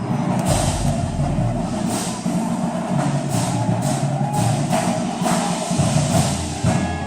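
High school band playing: sustained low notes with drum and percussion strikes over them.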